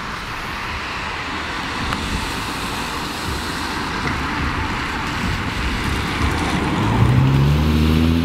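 A car drives along a wet road, its tyres hissing steadily and growing louder as it approaches. About a second before the end, its engine note comes in loud and rises slightly as the car draws near.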